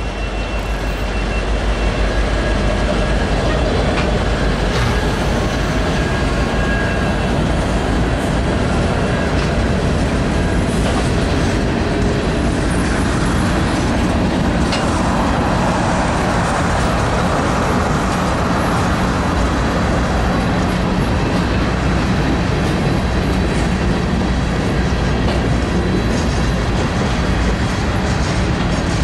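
Norfolk Southern freight train passing close by: the last of its diesel locomotives, then a long string of open-top hopper cars, wheels rolling steadily on the rails. It grows louder over the first two seconds, then holds steady.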